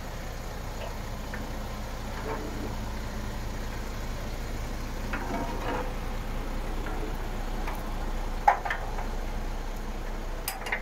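MAN TGX 26.440 truck's 10.5-litre six-cylinder diesel idling steadily, with one sharp click about eight and a half seconds in.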